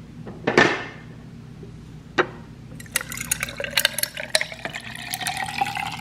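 A short burst of noise about half a second in, then a thick green blended drink poured from a blender jar over ice cubes in a glass, from about three seconds in. The pitch of the pour rises as the glass fills, and the ice crackles and clinks.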